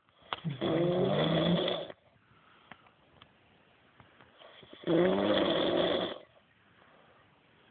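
A woman snoring loudly: two long snores, each a little over a second, about four seconds apart.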